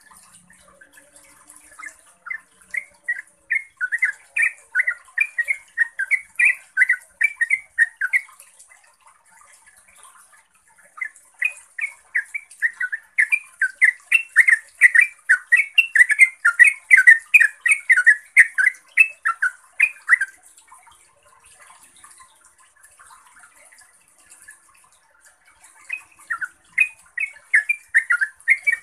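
Yellow-vented bulbul singing its long rolling song: rapid runs of bubbling notes in three bouts with short pauses between, the middle bout the longest and loudest.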